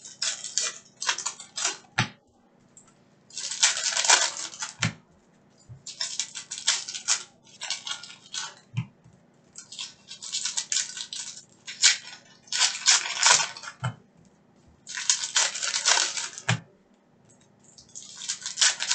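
Foil trading-card pack wrappers crinkling and tearing open in the hands, in repeated bursts of rustling every two to three seconds. A few short knocks fall between the bursts.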